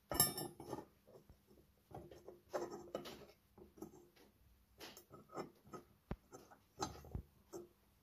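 Irregular scrapes, clinks and knocks of a toothed metal ratchet bracket being handled and shifted on a workbench, loudest at the very start.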